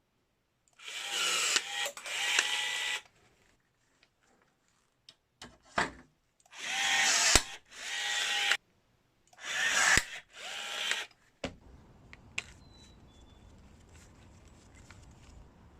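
Milwaukee M12 cordless rivet gun's motor whirring in three short runs. Each run is split by a sharp snap, the mandrel breaking off as a rivet is set, before the motor runs again.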